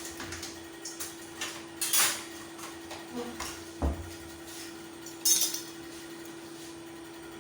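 Kitchen utensils clinking and knocking against pots and pans: a handful of separate clatters, with a dull thump about four seconds in and the loudest clatter just after five seconds. A faint steady hum runs underneath.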